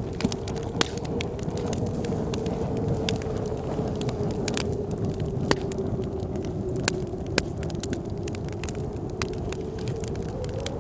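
Wood fire crackling with sharp, irregular pops, over the steady rush and howl of blizzard wind whose pitch wavers and rises near the end.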